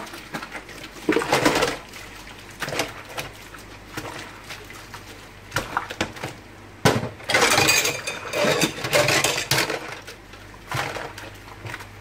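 Dishes washed by hand in a pot of soapy water in a stainless-steel sink: irregular sloshing and splashing, with clinks and knocks of cups against the pot and sink. The sloshing is loudest in two stretches, briefly about a second in and longer from about seven seconds in.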